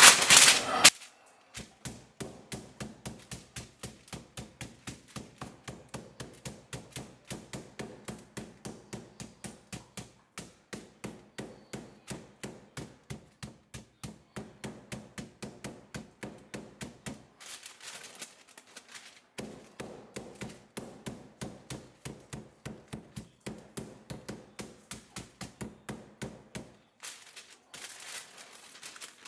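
Aluminium meat mallet pounding raw chicken breasts flat through a sheet of paper on a wooden cutting board: a long run of even knocks, about three to four a second. There is a break of about two seconds past the middle, and the paper is lifted and handled near the end.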